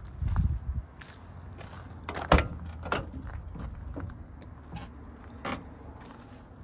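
Volkswagen T2 campervan cab door being opened: a sharp metallic latch click, the loudest sound, followed by a few lighter clicks and knocks, after a brief low rumble at the start.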